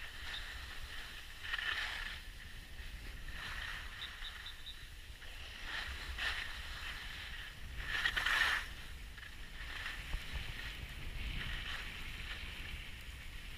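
Skier's or snowboarder's edges scraping and hissing over packed snow on a downhill run, swelling every couple of seconds with each turn, the loudest about eight seconds in. A steady low rumble of wind on the microphone runs underneath.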